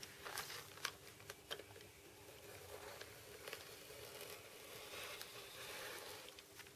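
A sharp snap-off utility knife trimming excess plastic covering film along a model wing's edge: faint slicing and scraping, with a few light clicks and crinkles of film, the cut running steadier in the second half.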